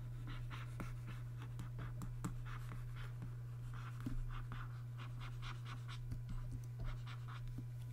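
Pen stylus scratching over a Wacom graphics tablet in quick repeated strokes, several a second, over a steady low hum.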